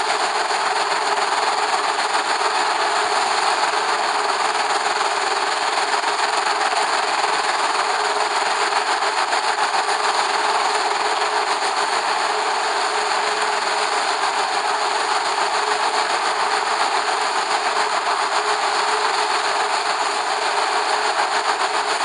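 Steady rushing noise on the nest-box camera's microphone, even throughout, with no distinct calls or other events.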